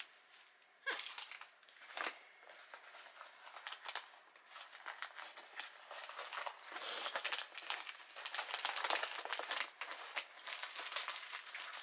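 Hands rummaging through a pile of things, with irregular rustling and crinkling and a few light knocks, in a search for a small item.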